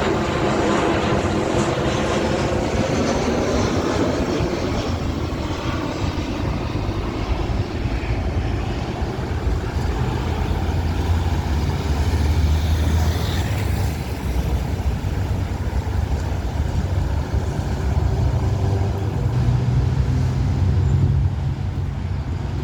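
Boeing 737-800's CFM56-7B jet engines passing and receding. A falling, wavering whine fades out over the first few seconds, leaving a low rumble that swells and eases twice.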